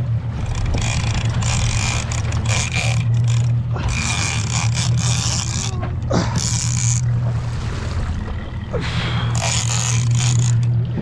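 Outboard motor running with a steady low hum, over which a fishing reel gives repeated short, high buzzing bursts as a southern bluefin tuna is fought on the rod.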